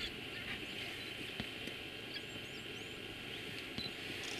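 Outdoor bush ambience: a steady high hiss of insects, with a few short, high bird chirps about two seconds in and a few faint clicks.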